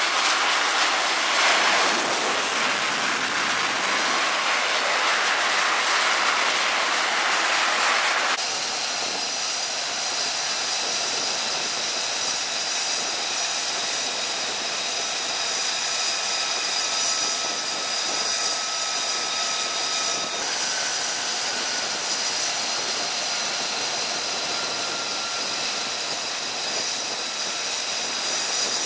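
Jet engines running on an aircraft carrier's flight deck, led by an F-35C Lightning II's turbofan: a loud, steady rush that gives way about eight seconds in to a slightly quieter steady noise with a high whine.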